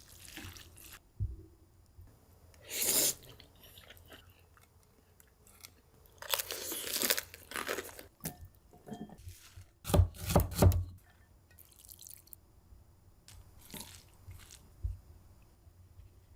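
Close-miked eating sounds of a mukbang: noodles with egg being chewed and slurped in short bursts. A few loud thumps come about ten seconds in.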